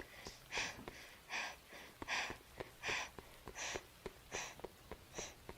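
A woman panting hard from running: quick, even breaths, about three every two seconds, with faint short ticks scattered between them.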